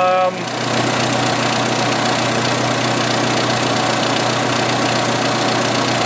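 1986 Jeep Cherokee XJ's 2.5-litre four-cylinder engine idling steadily. Its crankcase-ventilation vacuum leak has been repaired and its computer freshly reset, so the fuel trims are settling around the normal mid-point of 128.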